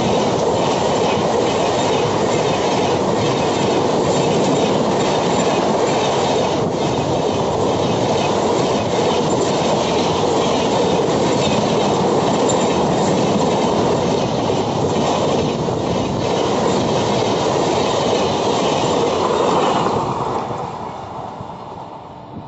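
Coaches of an Indian Railways express train passing close by at speed: a loud, steady rush and rumble of wheels on rails that fades away near the end as the train moves off.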